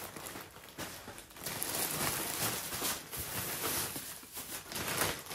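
Irregular rustling and handling noises of packaging, with scattered light knocks, as items are taken out of a parcel.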